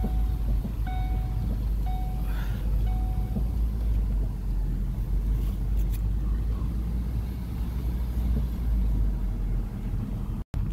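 Car cabin noise of a moving car: a steady low rumble of road and wind, with a short beep repeating about once a second for the first three seconds.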